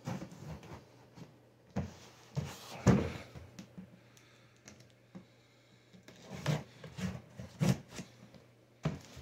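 Hands handling a cardboard shipping box: scattered knocks, taps and rubbing, the loudest about three seconds in.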